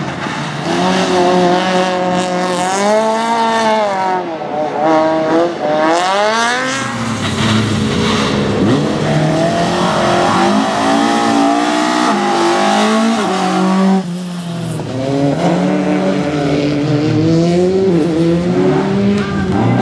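Rally car engine revving hard, its pitch climbing and dropping again and again with gear changes and lifts off the throttle. The sound changes abruptly about two-thirds of the way through.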